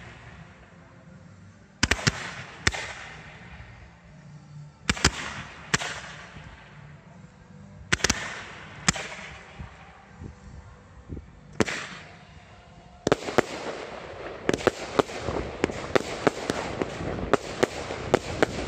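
Ground-fired fireworks with no mortar shells: pairs of sharp launch reports every three seconds or so, each followed by a fading hiss as comets climb. About two-thirds of the way through it turns into a dense run of rapid reports and crackling.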